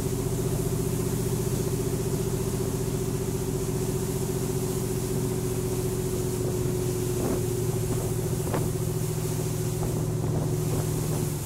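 Passenger canal boat's engine running at a steady cruise, a constant drone with a steady hum, over the hiss of wind and water. A couple of light knocks come past the middle.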